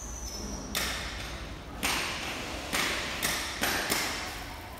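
Heavy vinyl-coated sound barrier curtain being rolled up and pressed by hand: about six short, sharp rustling bursts, coming faster over the last couple of seconds.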